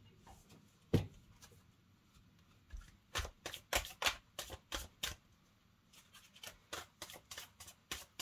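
Tarot cards being shuffled by hand. There is a single knock about a second in, then two runs of quick card snaps, about four a second.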